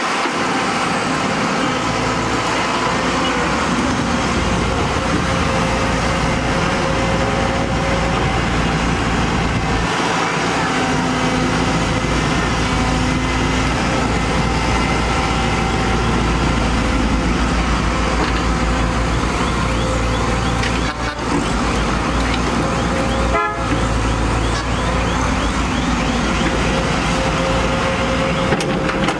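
Samsung wheeled excavator's diesel engine running steadily under load with a pitched whine over it as the machine digs dirt and loads a dump truck. The sound briefly drops twice in the second half.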